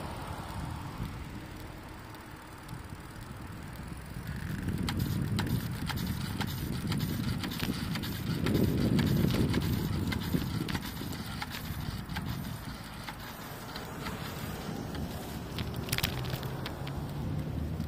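Wind buffeting the microphone on a moving bicycle, a low rumble that swells loudest about halfway through. Small clicks and rattles from the bike and tyres are scattered through it.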